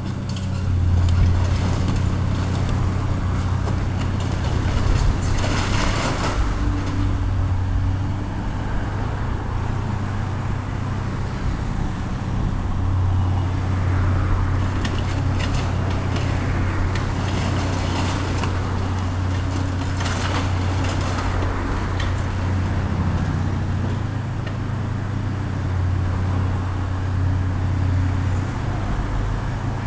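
Diesel engine of a heavy demolition machine running steadily, swelling in level several times as it works under load, with scattered knocks throughout.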